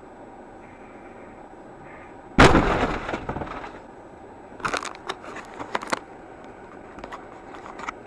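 Car collision heard from inside a vehicle: a sudden loud crunch of impact about two seconds in, fading over about a second. A few seconds later come a scatter of sharp cracks and knocks, like breaking parts and glass.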